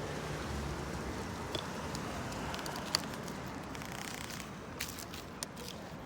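Wind buffeting the microphone over the steady rumble of a bicycle ride, with scattered sharp clicks and rattles in the second half, one louder click about three seconds in.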